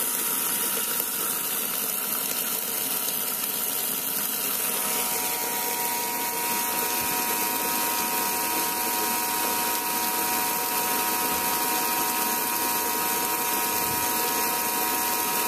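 A 12-volt Seaflow 750 GPH bilge pump runs with a steady whine under the rush of water from a garden hose filling the hull. The pump is keeping up with the hose at full blast, so the water level holds.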